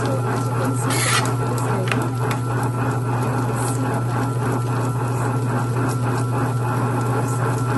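Tabletop wet grinder running, grinding soaked urad dal into batter: a steady electric motor hum under a continuous rubbing, scraping noise with many small ticks from its two grinding stones rolling against the drum.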